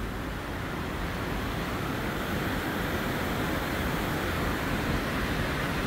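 Steady rushing of the Caribbean Princess's churning wake below the stern, mixed with wind.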